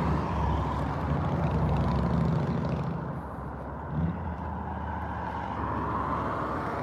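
A motor vehicle's engine running, loudest for the first three seconds and then easing off, with a brief bump about four seconds in.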